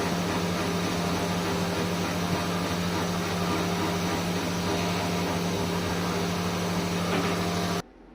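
Steady whirring hum of a gold jewellery cutting machine's motor running, with a constant hiss; it cuts off suddenly near the end.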